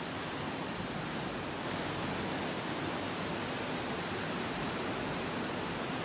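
Ocean surf breaking on the beach, heard as a steady, even wash.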